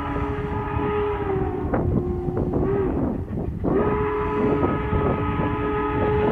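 Southern Pacific 4449 steam locomotive's chime whistle sounding a long chord of several tones at once; it sags, breaks off for about a second around the middle, then sounds again, held steady.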